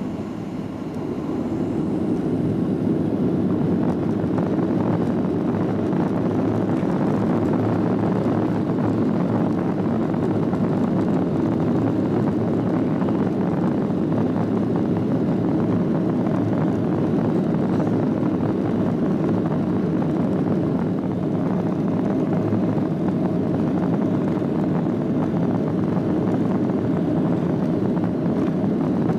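Cabin noise of a Boeing 737-700 rolling on the runway: a steady rumble of its CFM56 engines that swells over the first few seconds, then holds.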